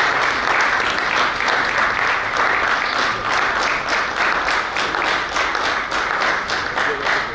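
Audience applauding steadily: many people clapping.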